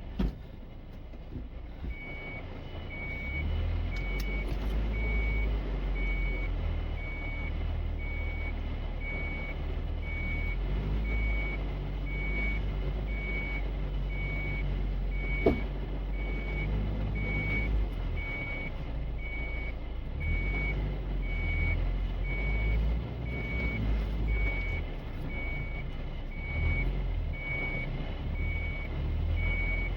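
A vehicle's electronic warning beeper sounding evenly about once a second over the low rumble of an engine, starting after a click about two seconds in.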